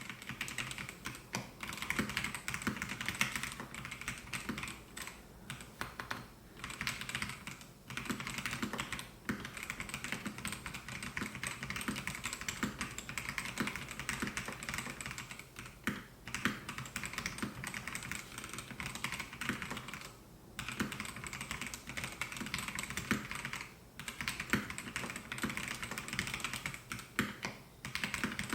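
Melgeek Mojo68 mechanical keyboard with white Pro switches being typed on, a fast run of key clicks broken by a few brief pauses.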